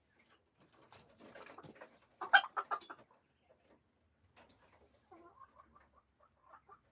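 Small caged poultry calling: a few rustling scratches, then a quick run of several loud calls a little over two seconds in, followed by softer, shorter calls near the end.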